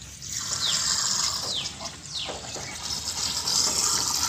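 Water running as it is poured into the radiator of a 2010 Maruti Suzuki Alto and leaks straight out through the faulty coolant circuit: a steady hiss of running water. A bird gives a few short falling chirps.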